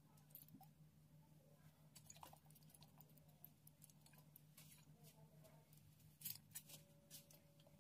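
Near silence: a low steady hum with scattered faint clicks and taps from bottles and a glass bowl being handled, the most distinct a little after six seconds in.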